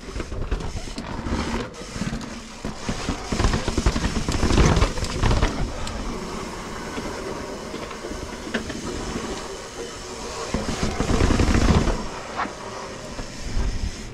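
Mountain bike rolling fast down a dirt trail: tyre noise with the chain and frame rattling over roots and bumps. Wind buffets the camera microphone, swelling about four seconds in and again around eleven seconds.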